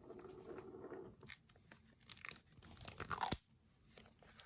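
Crinkling and crackling of the AirPods box's cardboard and paper packaging being handled and pulled open, with a run of crackles that stops abruptly near the end.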